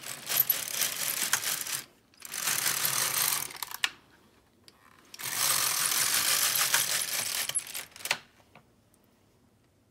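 Silver Reed LK150 mid-gauge knitting machine carriage pushed across the needle bed and back, knitting two rows of tuck stitch: a rattling, clicking rush of the carriage working the needles, in three runs with short pauses between.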